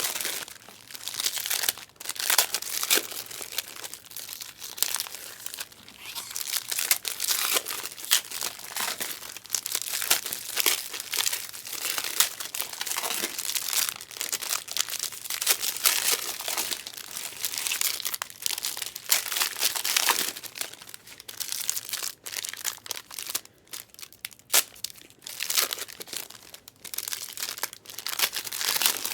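Trading-card pack wrappers and packaging being torn open and crinkled by hand, an irregular crackling that goes on with short pauses.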